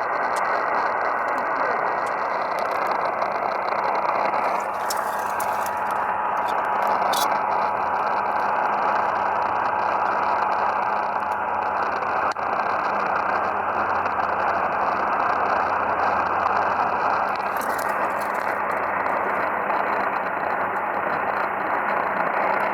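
Steady radio static hiss from a weather radio receiver with no broadcast coming through, cut off above the receiver's narrow audio range, with faint crackles.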